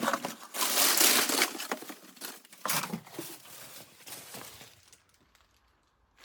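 Crinkling and crumpling of sheet material being handled, loudest about a second in, followed by a few smaller rustles, then quiet for the last second or so.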